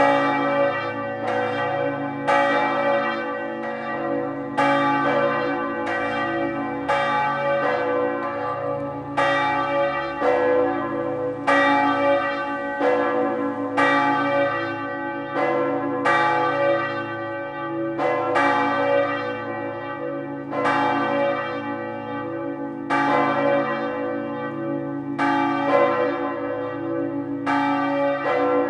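Swinging church bell rung in the belfry, struck about once a second, each stroke ringing on into the next so that the tones overlap.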